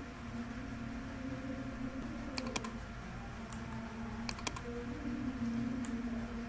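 About six sharp clicks of a computer keyboard and mouse, some in quick pairs, starting about two seconds in, over a steady low hum.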